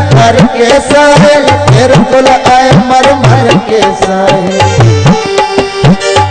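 Instrumental break in a Punjabi folk song: a hand drum plays a quick rhythm, its bass strokes sliding upward in pitch, under a bending melodic instrument line.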